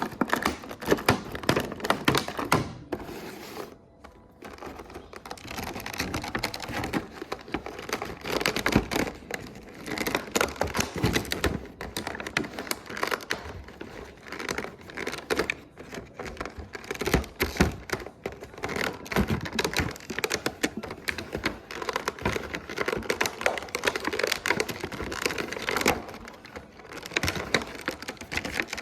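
Hands opening and handling toy packaging: a dense, irregular run of small plastic and cardboard clicks, taps and crinkles, with a brief lull about four seconds in.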